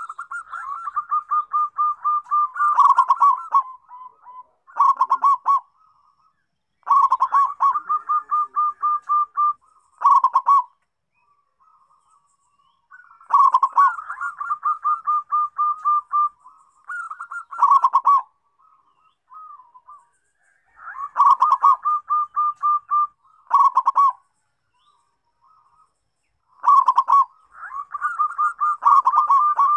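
Zebra dove (perkutut) singing: a string of song phrases, each a rapid series of pulsed coos, with short pauses between them.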